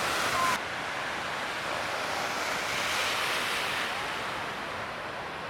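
Ocean surf breaking and rushing as a steady wash of noise that swells a little about three seconds in.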